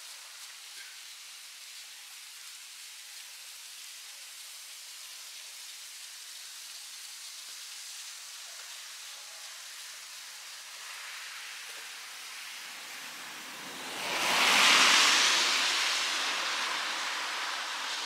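A vehicle driving past on a snowy street: its tyre and engine noise swells from about eleven seconds in, peaks loudly around fifteen seconds and fades, over a steady hiss.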